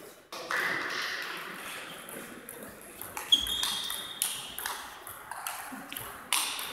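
Table tennis ball struck by rackets and bouncing on the table during a rally: a string of sharp clicks from about three seconds in, some with a short high ring, echoing in a sports hall.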